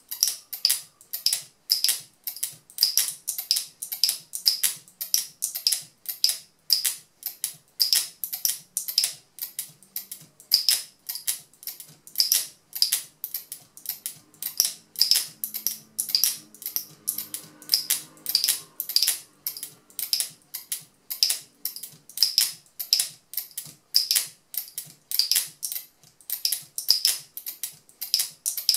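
Turquaz speargun camera mount's locking mechanism clicking as a camera housing is locked on and released over and over, a rapid, even run of sharp clicks, about two to three a second.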